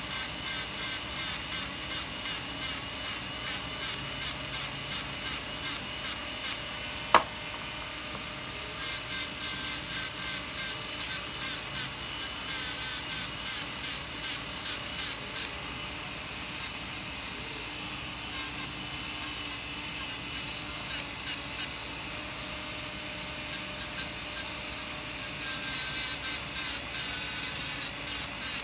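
Slow-speed dental handpiece running steadily with a Sof-Lex abrasive disc, grinding down the incisal edge of a composite restoration on a model front tooth to shorten it. A single sharp click about seven seconds in.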